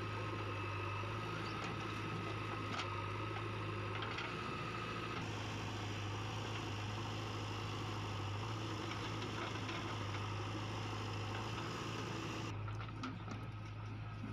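Diesel engines of a JCB 3DX backhoe loader and a tractor running steadily with an even, low hum.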